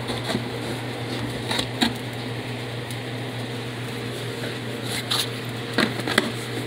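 Steady low mechanical hum and hiss of kitchen equipment around a gas range, with a few light clicks and knocks of handling scattered through it.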